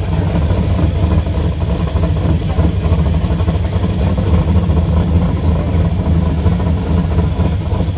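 Ford Mustang race car's engine idling with a steady low rumble as the car creeps forward at walking pace.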